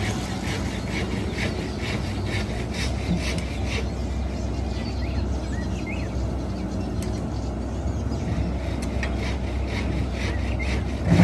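Excavator engine running steadily, with a string of irregular scraping, rasping strokes over it, and a sudden loud rush right at the end.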